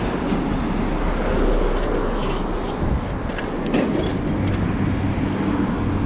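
Wind rushing over a handlebar-mounted action camera's microphone and road rumble from a bicycle riding along a city street, with scattered rattling clicks in the middle. A low steady engine hum from passing traffic comes in about two-thirds of the way through.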